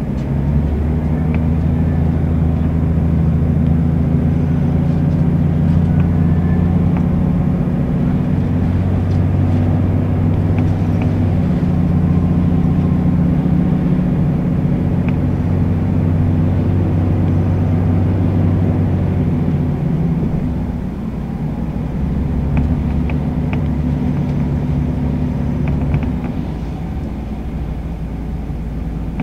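Scania L94UB city bus's nine-litre diesel engine heard from inside the bus, pulling under load with a steady drone whose note shifts in steps as the ZF automatic gearbox changes gear. It eases off about twenty seconds in and drops lower again near the end as the bus slows.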